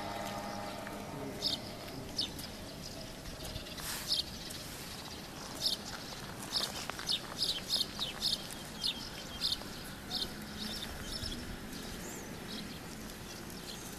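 Small birds chirping: short, high chirps come about once or twice a second through most of the stretch, over a low, steady outdoor background.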